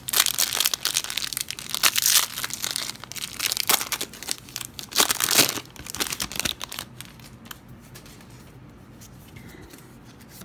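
Plastic wrapper of a Panini football card hanger pack being torn open and crinkled, busy for about the first seven seconds, then fading to faint handling.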